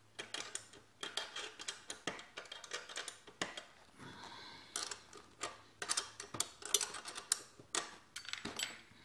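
Quick, irregular metallic clicks and clinks of a hand tool working the rear axle chain adjuster of a mini bike as the chain tension is set, with a short scraping rustle about four seconds in.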